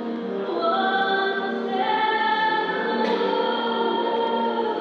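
Choral music: voices singing long, held notes, as for a processional.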